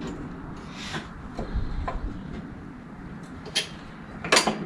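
Scattered clicks and knocks of mower deck parts being handled as the belt and idler arm are fitted back in place, with the loudest knock near the end.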